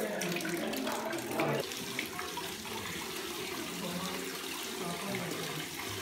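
Cave spring water running steadily into a rock pool, a continuous trickle.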